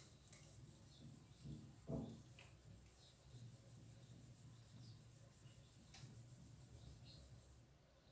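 Cloth wiping marker writing off a whiteboard: faint, repeated rubbing strokes, with a soft knock about two seconds in.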